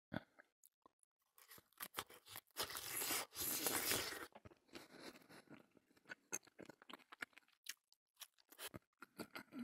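Close-up chewing of a bite of grain sausage with mustard: a loud crunching stretch about three seconds in, then a long run of softer chewing clicks.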